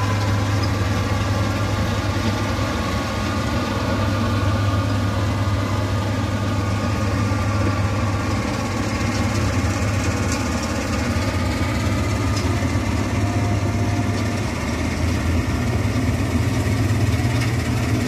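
Combine harvester's diesel engine running steadily at an even speed, a continuous low hum.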